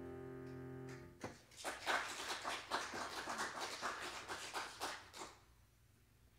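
The last piano chord dies away, then a small group claps for about four seconds before the applause stops.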